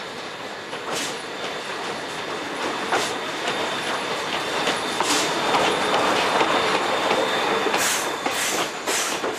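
Steam-hauled passenger train, the JNR Class C11 tank locomotive C11 312 and its old coaches, rolling slowly past: a steady rumble of wheels on rail with clicks over the rail joints that come faster near the end, and a thin steady high squeal from the wheels.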